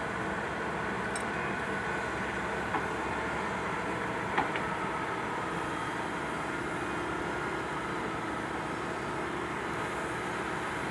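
Komatsu PC130 excavator's diesel engine running steadily while the boom and arm move, with a single sharp knock about four seconds in.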